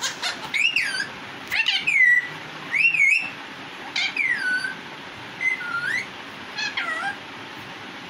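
A young Indian parakeet screaming: a series of about seven loud, shrill calls, roughly one a second, each rising and falling or sliding down in pitch.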